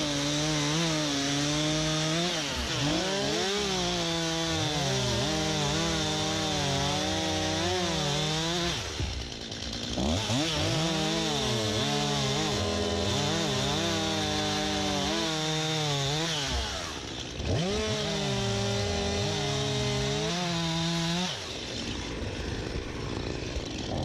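STIHL MS251C two-stroke chainsaw cutting dead elm. The engine speed rises and falls under load, drops back briefly about 9 and 17 seconds in, and runs lower near the end.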